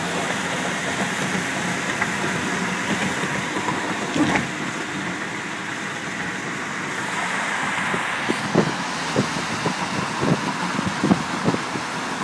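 Road noise heard from inside a moving car in traffic: a steady rush of tyres and engine. There is a thump about four seconds in and a run of irregular knocks over the last few seconds.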